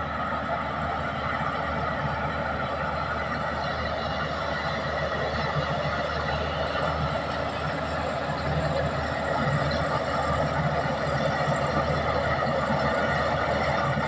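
Komatsu D61EX crawler bulldozer's diesel engine running steadily as the dozer pushes a load of earth and rock. The sound grows a little louder about two-thirds of the way through.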